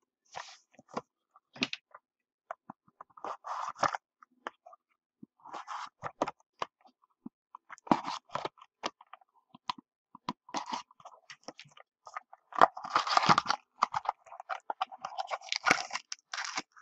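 Cardboard trading-card boxes being handled and opened: rustling and scraping of cardboard and wrapper, with scattered clicks and taps as boxes and packs are set down, busiest near the end.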